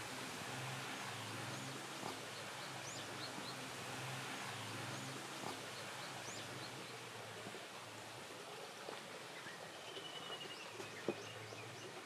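Quiet outdoor ambience: a steady rushing hiss with small birds chirping high and thin, and a short bird trill about ten seconds in. A faint low hum fades out in the first half, and a single sharp click comes near the end.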